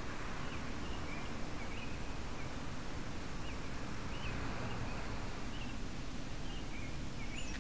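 Birds chirping in short scattered calls over a steady hiss and low rumble from the keychain camera's small microphone.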